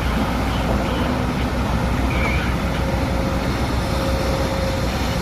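Heavy diesel machinery running steadily: a constant low rumble with a steady whine above it, no pauses or revs.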